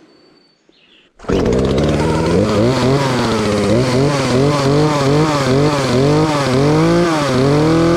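Two-stroke chainsaw starts abruptly about a second in and runs at high revs, its pitch repeatedly dipping and rising as it works through a cut.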